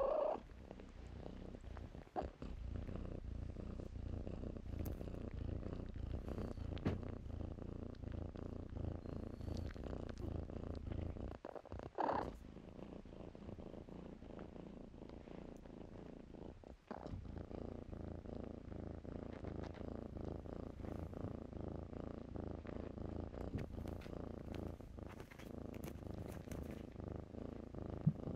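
Kitten purring while being stroked by hand: a steady, rapid low rumble that breaks off briefly a few times.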